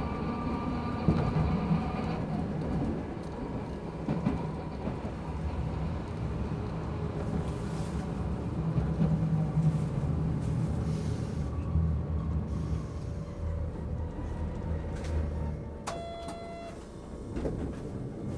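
Toei Arakawa Line streetcar running on its rails, heard from inside the car: a steady low rumble of wheels on track, with a thin motor whine that stops about two seconds in. A short steady tone sounds near the end.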